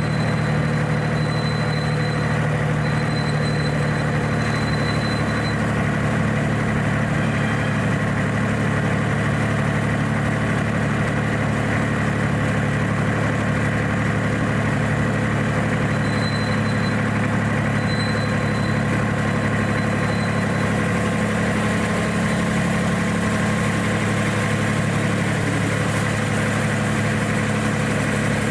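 Engine of a miniature-railway diesel-outline locomotive running steadily at low, unchanging revs, heard close up from the driver's seat. A thin high whine comes and goes twice.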